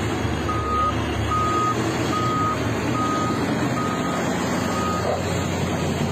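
Back-up alarm on an earth-moving machine beeping six times at a steady pitch, a little faster than once a second, then stopping. The diesel engines of the heavy machinery run steadily underneath.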